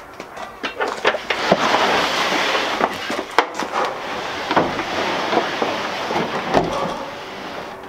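Plywood box with metal-edged corners being slid across the ribbed floor of a pickup bed: a long scraping rush with several knocks and clunks as it is set down and pushed in.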